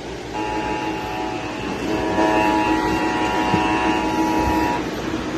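Emergency Alert System attention signal: a steady, buzzy two-tone alert chord. It comes in about half a second in and cuts off shortly before the end, over constant background noise.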